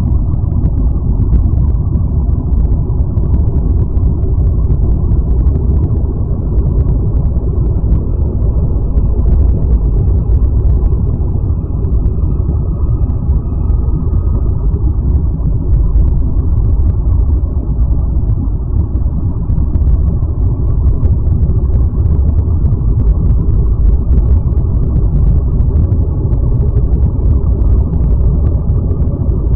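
Loud, steady, deep rumble with no distinct events: an ambient space drone presented as the 'sound' of exoplanet Kepler-666b.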